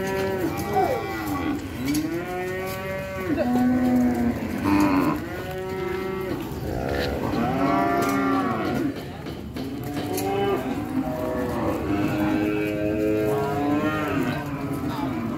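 Several zebu cattle mooing over and over, the calls following one another almost without a break and sometimes overlapping, many of them rising and then falling in pitch.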